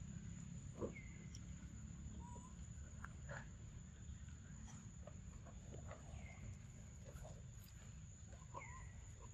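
Faint forest ambience with a steady low rumble and a few short, scattered animal calls.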